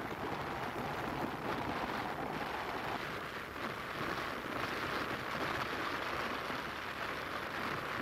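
Steady road and wind noise of a car driving along a city street: an even hiss over a low rumble.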